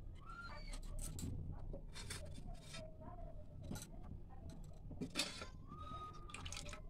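A metal spoon clinking and scraping in a steel serving dish of curry, with one louder clink about five seconds in, among faint scattered clicks.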